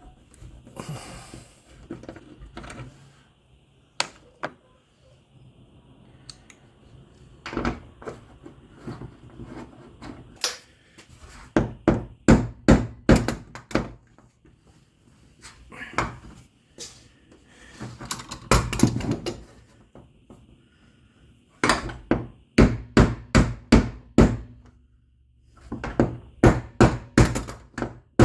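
Bursts of rapid knocking, several sharp strikes a second, of a crescent wrench used as a hammer to drive handle bolts out through a wooden garage door.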